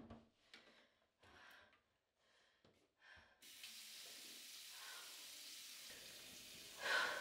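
Bathroom sink tap running in a steady stream, starting about three and a half seconds in after a few faint handling sounds. A louder breathy burst comes near the end.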